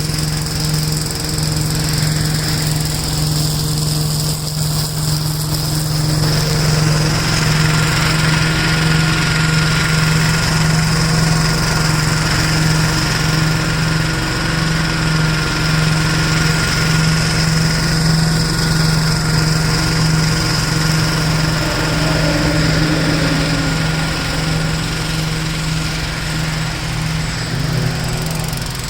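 1969 Gravely L-I walk-behind tractor's single-cylinder engine running steadily with its mower, mulching nuts and leaves. A thin, steady whine joins in about seven seconds in.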